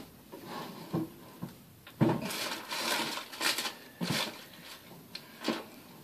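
Rummaging and handling noises while a microfiber cloth is fetched: scattered small knocks and clatters, the sharpest about two seconds in, with a stretch of rustling after it.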